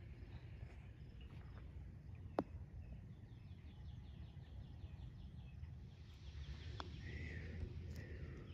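Quiet golf-course ambience with a low steady rumble. A sharp click of a club striking a golf ball comes about two seconds in, and a fainter putter tap about seven seconds in. A fast, evenly ticking chirping trill runs through the middle, and a short bird chirp comes near the end.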